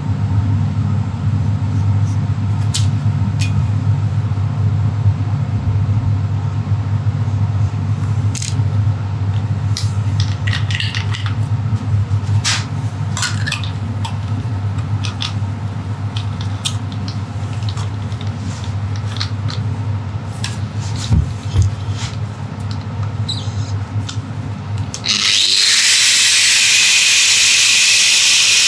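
A steady low hum with scattered clicks and taps of steel parts being handled. About 25 seconds in, an angle grinder starts abruptly with a loud, steady, hissing whine as its disc works the steel frame tube.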